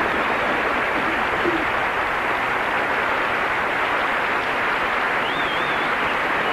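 Studio audience applauding steadily, with a few cheers rising above the clapping near the end.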